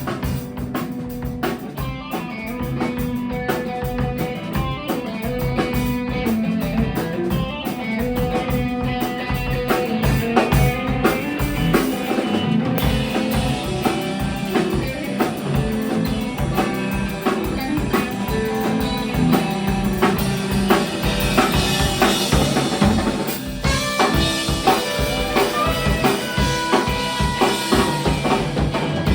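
Live indie-punk band playing an instrumental passage: a drum kit keeping a steady beat under electric guitar, with a brief break about four-fifths through.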